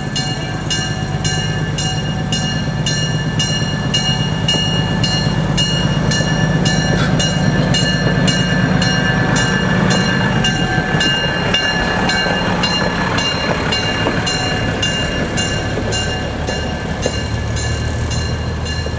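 A railbus rolling slowly past on the rails with its engine running and a regular clicking about one and a half times a second. It gets loudest as it passes, about halfway through, then draws away.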